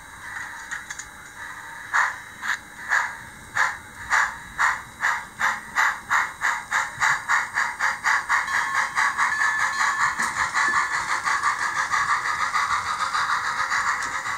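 HO-scale model steam locomotive's sound unit chuffing as the engine pulls away with its train, the exhaust beats starting about two seconds in at roughly two a second and speeding up steadily until they nearly run together, with a steam hiss underneath.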